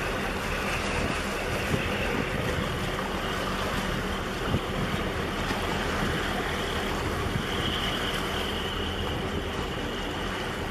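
Wind buffeting the microphone over choppy harbour water, with the low steady drone of a tugboat's diesel engine as it passes close by. A faint high whine joins about seven seconds in.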